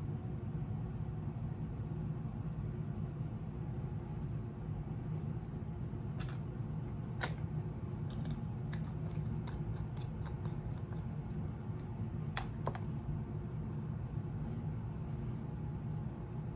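A steady low hum, with a run of light, sharp clicks in the middle, some close together and some a second or more apart.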